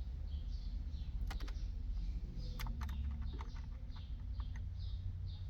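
Sharp plastic clicks of dashboard climate and radio buttons being pressed on a 2017 Lincoln MKC, a dozen or so scattered through the middle seconds, as the front controls come back to life after loose connectors were reconnected. Under them runs a steady low hum, with faint high ticks repeating about twice a second.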